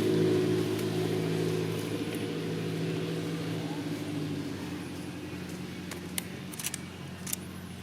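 A motor engine running with a steady hum that slowly fades, with a few sharp clicks near the end.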